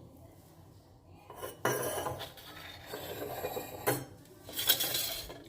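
Kitchen pots and utensils clattering and scraping, starting about a second and a half in, with a sharp knock near four seconds and another burst of clatter near the end.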